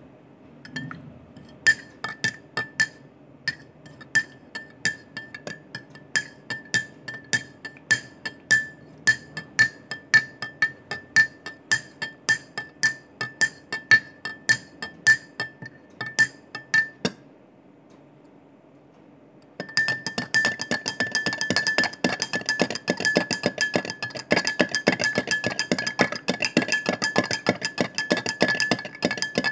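A teaspoon stirring coffee, clinking against the cup with a ringing tone at about three clinks a second. It stops for a couple of seconds, then resumes as fast, continuous clinking.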